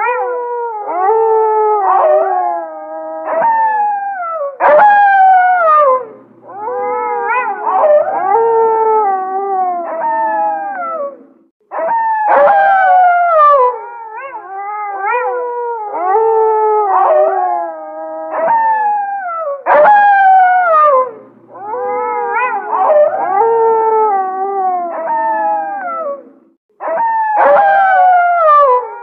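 A pack of gray wolves howling in chorus: several long howls overlap, each sliding down in pitch. The chorus breaks off briefly about eleven seconds in and again near the end, then starts up again.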